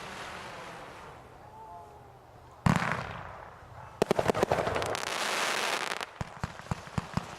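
Consumer aerial fireworks going off: one sharp, loud burst about two and a half seconds in, then a rapid string of cracks running into about two seconds of dense crackling hiss, with scattered pops near the end.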